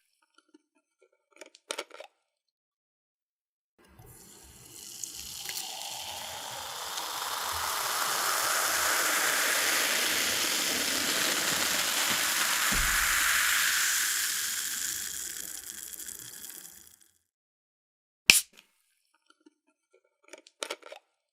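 Cola being poured in one continuous stream for about thirteen seconds, fizzing as it pours; the stream builds, holds, then tapers off. Light clicks come before the pour, and a sharp knock follows shortly after it ends.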